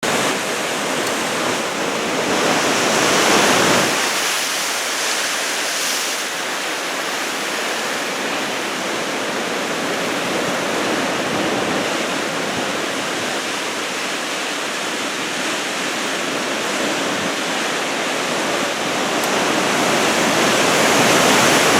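Heavy typhoon surf: a continuous roar of breaking waves that swells about three seconds in and again near the end.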